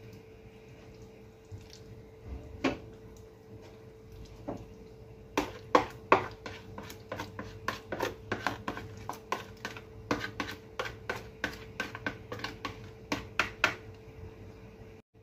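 Plastic rice paddle knocking and scraping against a plastic plate and the rim of an aluminium wok as blended tempe is scraped into the pan. There are a few scattered clicks at first, then quick repeated knocks, about three a second, from about five seconds in until near the end. A faint steady hum runs underneath.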